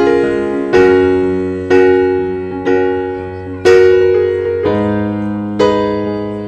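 Background music: slow piano chords, struck about once a second and left to fade before the next.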